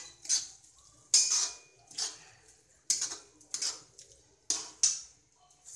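Flat metal spatula scraping and stirring a thick onion, tomato and potato masala in a metal kadai: about eight sharp scrapes against the pan, irregularly spaced.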